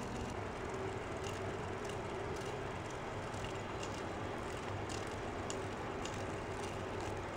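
Steady low hum with hiss, with a few faint ticks.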